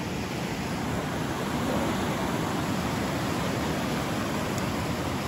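River rushing over rocks, a steady even roar of water.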